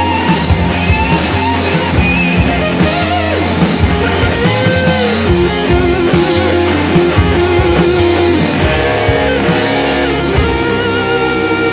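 Background rock music led by electric guitar over bass and drums.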